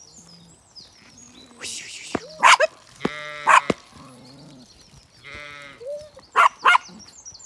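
Zwartbles ewes and lambs bleating, about half a dozen separate calls, some long and wavering and some short and higher, with small birds chirping faintly behind them.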